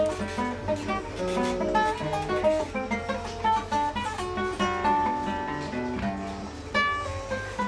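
Classical guitar played solo: a quick line of plucked notes with occasional chords.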